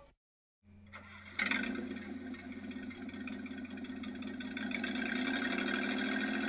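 Car engine running with an exhaust leak that is pretty obvious to hear. It comes in suddenly after a short silence and then runs steadily.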